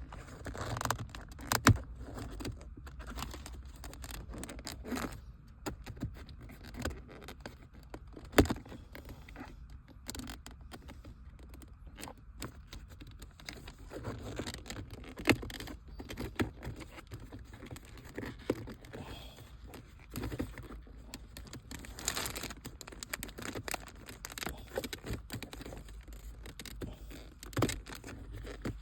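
Irregular plastic clicks, knocks and scraping as the shift boot surround is pried off its clips in the center console. A few sharp, loud knocks stand out, about two, eight and fifteen seconds in.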